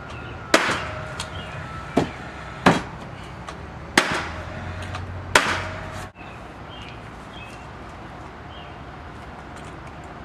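Paslode nail gun firing five times at uneven intervals over about five seconds, nailing brick mold trim to the door frame.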